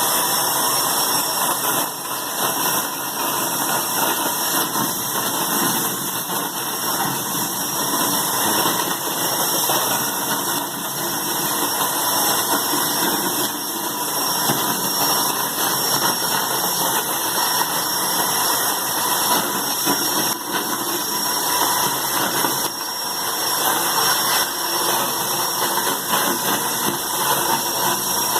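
Homemade vacuum cleaner driven by two 1,100-watt Electrolux motors running at full power during a suction test: a steady, loud rush of air with a thin high whine.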